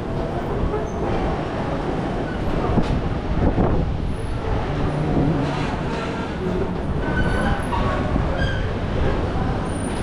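Steady low rumble of city traffic on the street below.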